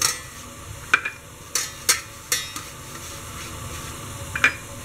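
A hand rubbing oil over a perforated stainless-steel steamer plate, with a few sharp metal clinks and knocks as the plate is handled.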